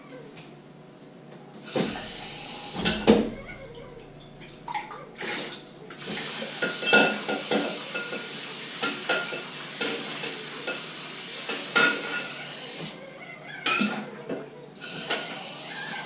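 Pots, dishes and cutlery clattering in a stainless-steel sink during washing-up, with tap water running for most of it.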